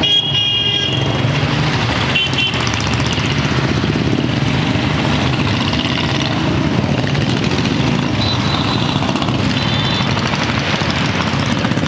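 Several motorcycle engines running as the bikes ride off in a group among road traffic, a steady loud engine and traffic noise with a few short high beeps now and then.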